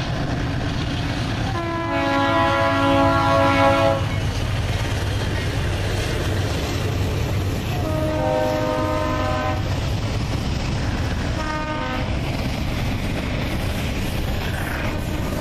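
Diesel freight locomotive's air horn sounding for a grade crossing, several tones at once: two long blasts and then a short one, over the steady rumble of a double-stack intermodal freight train rolling past.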